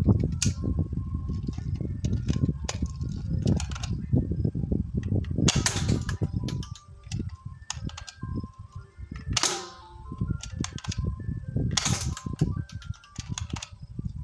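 Airsoft AR-15 rifle fired on semi-automatic: single sharp pops spaced irregularly a couple of seconds apart. Under them runs a low, hollow rumble, picked up by the microphone inside a corrugated plastic pipe.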